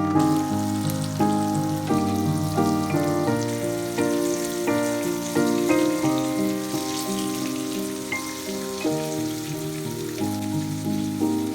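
Instrumental background music, a steady run of changing chords, over a fine high hiss with faint crackles.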